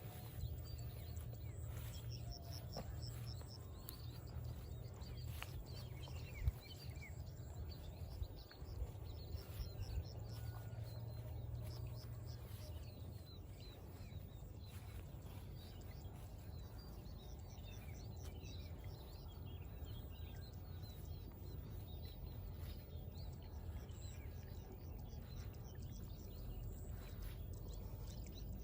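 Many small birds chirping and calling over a steady low rumble, with a sharp knock about six seconds in and a few fainter knocks a couple of seconds later.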